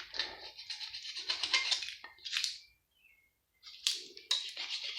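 Metal parts of an electric pump motor scraping and clinking as it is taken apart by hand, in two spells with a pause of about a second between them.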